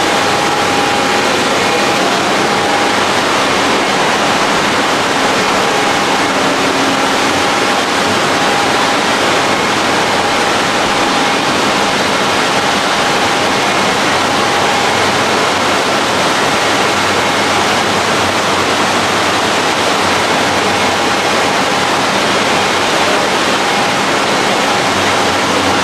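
Steady rush of water pouring and splashing into a koi tank from its inflow, churning the surface, with a faint steady hum under it.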